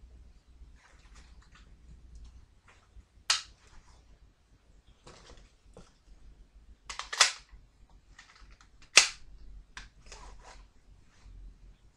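Sharp clicks and clacks of guns and gear being handled and readied: a single click about three seconds in, a quick run of clicks around seven seconds in, and the loudest, sharpest click about nine seconds in.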